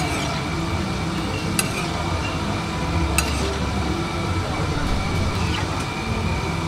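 Roti cooking on a hot flat griddle, with sharp metallic clinks of a spatula on the pan about every second and a half over a steady low hum.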